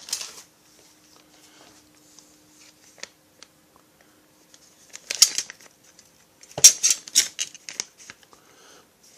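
Crinkling and rustling with light clicks as small chainsaw kit parts are unpacked and handled: a short burst about five seconds in, then a longer run of sharp crackles a second or so later.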